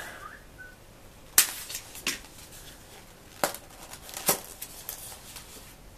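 Small styrofoam box being handled and pried open: several sharp cracks and creaks of the foam a second or so apart, the loudest about a second and a half in, with faint rubbing between.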